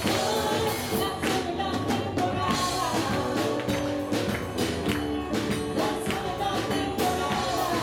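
Live worship band playing an upbeat Spanish-language praise song: a woman and a man singing into microphones over keyboard and electric guitar, with percussion keeping a steady beat.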